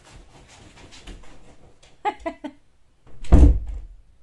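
Faint shuffling, then a woman's brief laugh about two seconds in, followed by a loud, bass-heavy thump close to the microphone.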